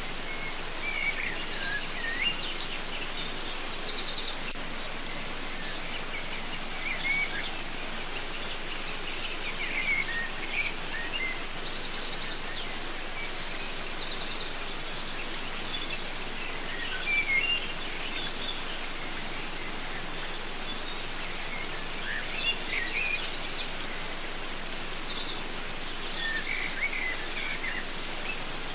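Steady rushing of a waterfall, with birds chirping and trilling over it in short clusters several times.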